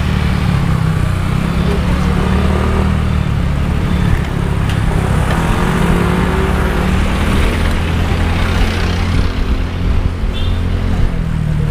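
Motorcycle and car engines running in busy street traffic close around a bicycle, over a steady low rumble.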